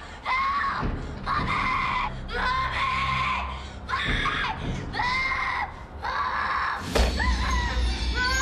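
A child screaming over and over, each high-pitched scream rising then falling. A heavy thud lands about seven seconds in.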